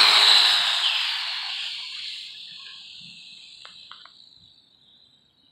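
WLtoys A959 electric RC buggy passing close at speed, its high-pitched motor and gear whine loudest right at the start, then fading over about four seconds as it runs away down the road.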